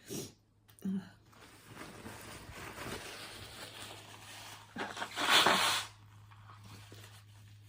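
Two short sniffs, then a long noisy breath drawn in through the nose, and about five seconds in a loud, forceful blast of breath out through the nose lasting about a second. The nose is itching and irritated from the spice, but no sneeze comes.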